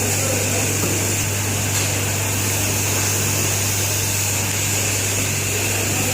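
A motor-driven machine running steadily: a constant low hum under a hiss, with no change in speed.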